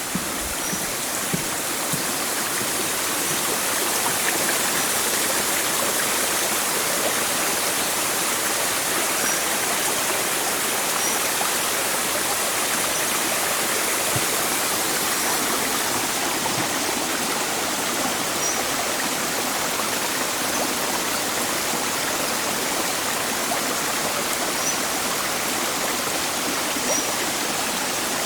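Steady rush of flowing stream water, growing louder over the first few seconds and then holding even, with faint short high chirps every few seconds.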